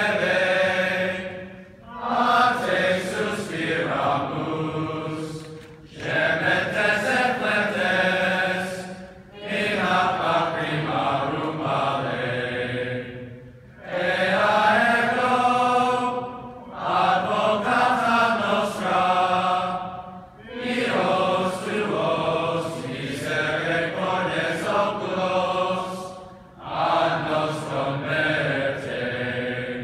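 A large group of male voices singing together, in long sustained phrases with short breaks between them.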